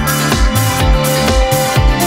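Live funk band playing an instrumental dance track: a steady kick-drum beat under a held electric bass line, electric guitar and sustained higher tones.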